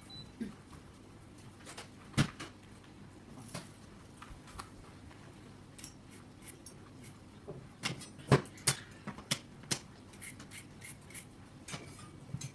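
Scattered sharp clicks and knocks from a round trampoline's metal frame, springs and padded cover being handled during assembly: one about two seconds in, then a cluster of several about eight to nine and a half seconds in.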